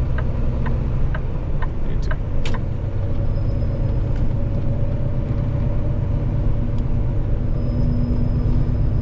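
Semi-truck engine and road noise heard inside the cab while driving: a steady low drone and rumble, with faint light ticks about twice a second.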